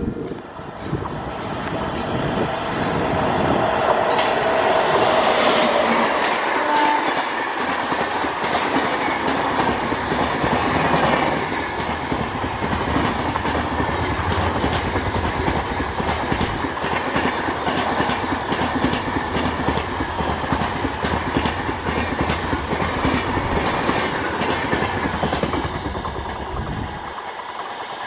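Express train hauled by a WAP-7 electric locomotive passing through a station at speed without stopping. Its wheels clatter over the rail joints in a fast, continuous rhythm as the coaches rush past. The sound builds over the first few seconds and fades near the end as the train moves away.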